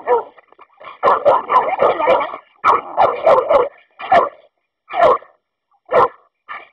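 American Staffordshire terriers barking in fast, dense runs, then single barks about a second apart near the end.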